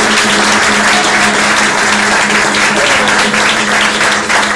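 Audience applauding, dense and steady, with a low steady tone held underneath.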